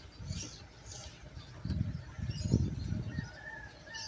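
Irregular low rumbling on the microphone that comes and goes in gusts, with a short wavering bird call near the end.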